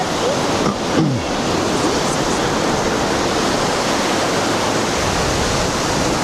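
Steady wash of sea surf breaking on a sandy beach, an even rushing noise that holds at one level throughout.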